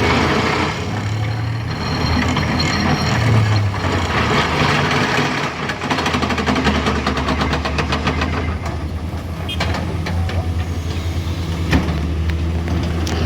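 Heavy vehicle engine running with a steady low hum, and a fast rattling clatter for a few seconds in the middle.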